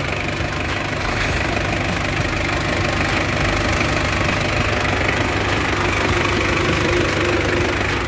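Mazda Fighter's WE four-cylinder diesel engine idling steadily just after a cold start, which it made on the first crank once the faulty glow plugs were replaced.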